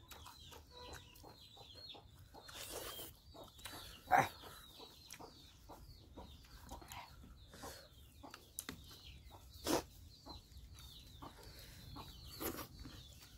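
Close-up eating sounds of chicken curry and rice eaten by hand: wet chewing and lip smacks, many short clicks with a few louder smacks.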